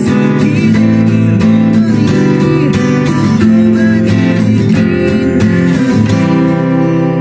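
Steel-string acoustic guitar strummed in a steady rhythm, several strokes a second, its chords ringing on.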